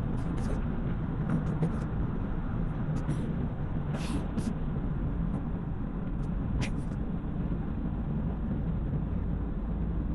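Car driving along a road: a steady low rumble of engine and tyre noise, with scattered small clicks and rattles.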